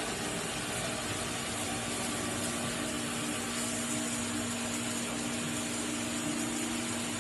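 Vertical band-saw cutting machine for carton board running steadily: an even motor hum under a constant hiss.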